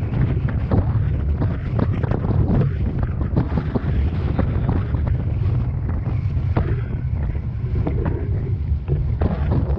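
Strong wind buffeting the microphone: a loud, steady low rumble with frequent crackles.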